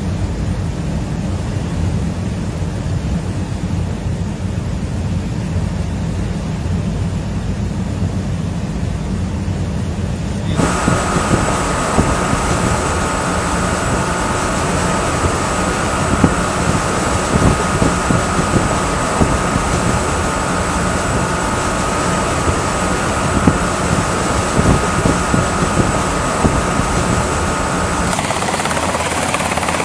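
A steady low rumble, then an abrupt cut about ten seconds in to louder helicopter noise: a steady high whine over uneven rotor noise. The sound changes again with another cut near the end.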